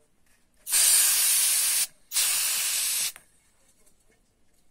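Can of compressed-air dust remover sprayed into a laptop's fan vent in two hissing blasts of about a second each, with a short gap between. It is blowing out the dust clogging the fan that causes the machine's fan error.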